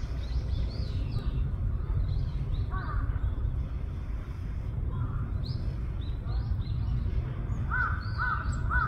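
Wild birds calling over a steady low rumble. High thin chirps come and go, and a lower, harsher call comes once in a brief group about three seconds in and then four times in a row, about half a second apart, near the end.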